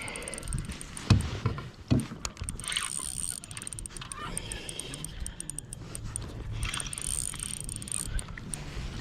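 Handling noise aboard a kayak while a fish is brought in: two heavy knocks against the hull about a second and two seconds in, then rustling and small knocks.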